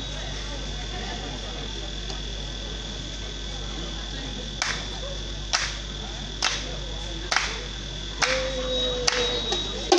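Hands clapping a slow, even beat, six claps about a second apart, over a steady high-pitched whine. Near the end a long held note sounds alongside the claps.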